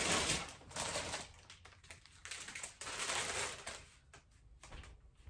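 Plastic flower-bouquet wrapping being handled and crinkled in several irregular bursts, with small clicks between them.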